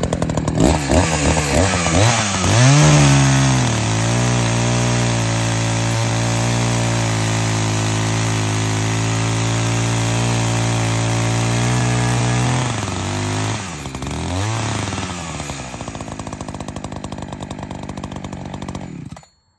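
Echo CS-590 two-stroke chainsaw, about 60 cc, with an 18-inch bar and a new chain: it is revved from idle, then held at a steady part throttle while cutting into a log. About two-thirds through it drops back, revs once more and settles lower, then stops abruptly near the end. The new saw is being run at about half throttle to break it in.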